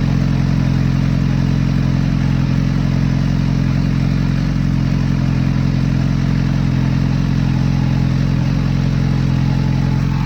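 Kawasaki Z H2's supercharged inline-four engine idling steadily, freshly refilled after an oil and filter change.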